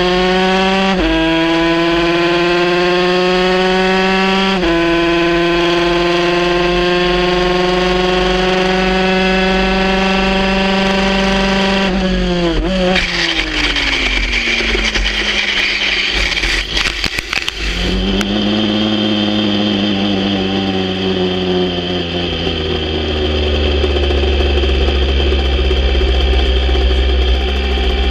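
Aprilia RS 125 two-stroke single running hard at high revs in top gear, rising slowly with two brief dips. About twelve seconds in the revs drop steeply and several seconds of scraping and clattering with sharp knocks follow as the bike crashes and slides into the gravel trap. The engine then keeps running at lower, slowly falling revs.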